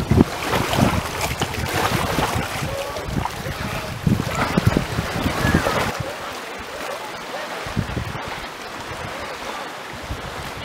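Lake water lapping and splashing over shoreline rocks, with wind buffeting the microphone. About six seconds in it drops to a quieter, steady outdoor hush.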